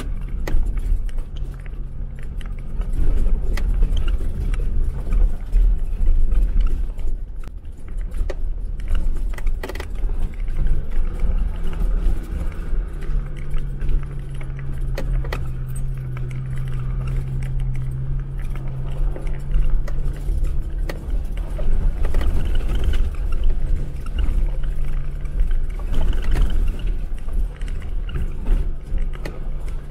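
Jeep Wrangler driving off-road: a steady low engine drone over a heavy rumble, with frequent short knocks and rattles. The drone grows louder for several seconds about halfway through.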